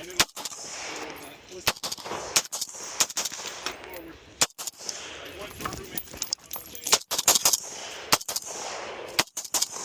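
Gunshots from a shooter firing a timed course of fire: a string of a dozen or so sharp shots at uneven intervals, some in quick pairs and bursts, with handling and movement noise between them.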